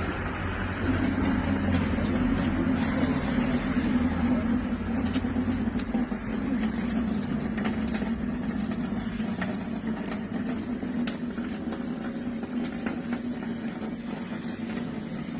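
Water running from a tap into a steel sink basin, over a steady low hum that sets in about a second in.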